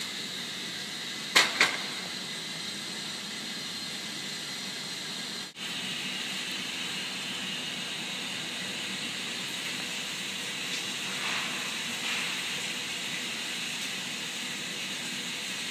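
Steady hiss of an industrial hall's background noise. Two sharp knocks close together come about a second and a half in, and the sound cuts out for a split second near the middle.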